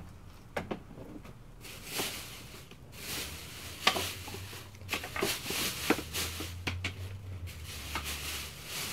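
Plastic trash bags rustling and crinkling, with scattered sharp knocks, as a pole prods and shifts bags of frames and books in a metal dumpster.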